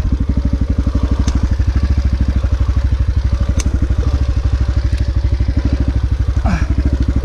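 Dirt bike engine idling steadily with an even pulsing beat, with a few sharp clicks over it.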